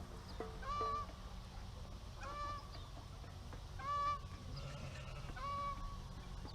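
Domestic fowl calling: four short, evenly spaced calls, about one every second and a half.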